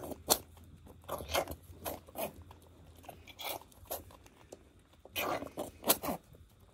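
Irregular crunching and rustling as gloved hands rub and clean a newborn goat kid in straw and wood-shaving bedding, in short scattered strokes.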